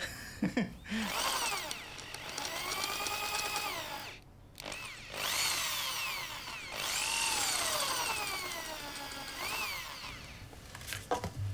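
Handheld electric drill boring through a metal plate on a guitar body, its motor whine rising and falling in pitch as the trigger is squeezed and eased. It stops briefly about four seconds in and again near seven seconds, then runs on.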